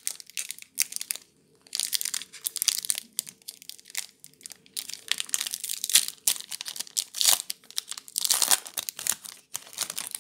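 Foil wrapper of a Magic: The Gathering booster pack crinkling and tearing as it is peeled open by hand, in irregular runs of sharp crackle with short pauses.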